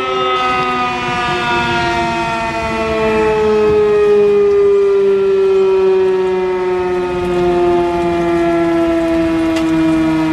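Pole-mounted outdoor warning siren sounding the 6:00 evening whistle, a daily time signal: one long, loud tone whose pitch slowly falls.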